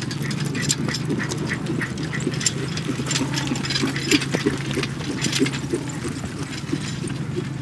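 A pair of horses trotting while pulling a four-wheeled carriage: irregular hoofbeats with harness and carriage rattle, over a steady low hum.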